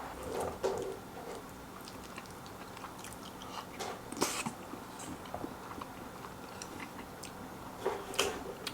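A person chewing and eating, close to the microphone, with scattered short clicks and taps.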